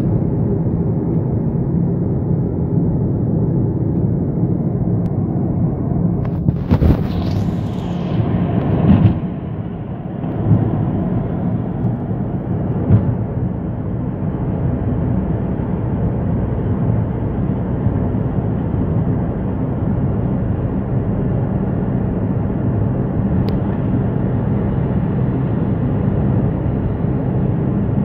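Steady engine and tyre rumble heard from inside a moving car, with a brief louder rushing noise between about six and nine seconds in.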